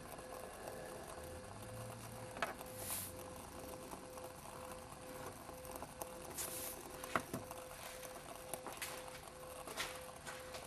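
Esbit solid-fuel tablet and denatured alcohol burning inside a tin-can volcano stove under a cup of water: a faint steady flame hiss with scattered small ticks and crackles.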